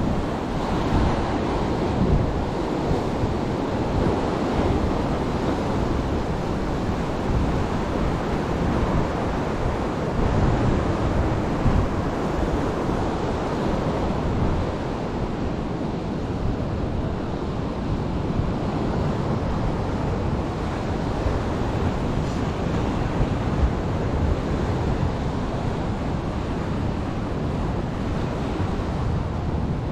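Sea waves washing on the shore as a steady rush, with wind buffeting the microphone in uneven low rumbles.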